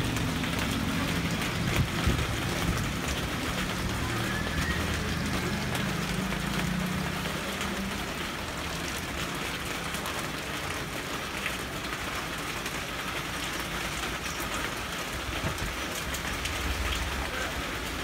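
Steady rain falling, with the low hum of a motorcycle engine passing by that fades out about eight seconds in.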